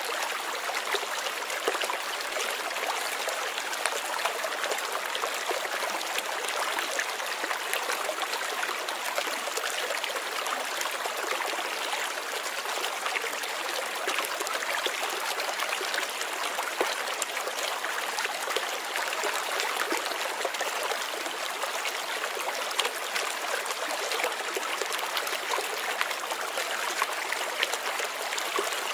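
Running water of a stream, a steady rush without pause, full of small splashes and trickles.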